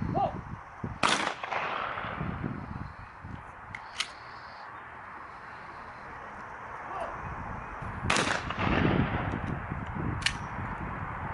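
Gunfire: two loud single shots about seven seconds apart, each trailing off in a long rolling echo, with fainter, sharper single cracks in between.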